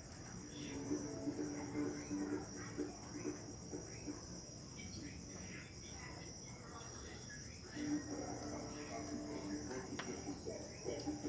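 Night insects, crickets, chirring steadily in a high, even band, with a faint low hum that drops out in the middle and comes back about eight seconds in.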